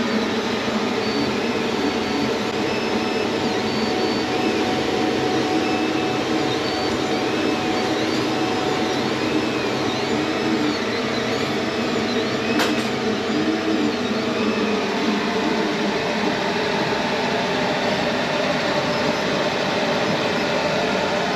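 MakerGear 3D printers running: a steady whir of fans, with the stepper motors whining up and down in pitch over and over as the print head moves back and forth. There is a single click about twelve seconds in.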